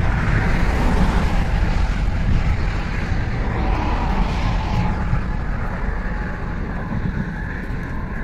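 Steady low rumble of vehicle noise with no distinct events, easing slightly toward the end.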